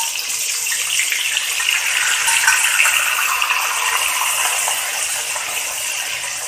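Turmeric, green chilli and ginger paste frying in hot rice oil in a kadhai: a steady sizzling hiss that slowly dies down.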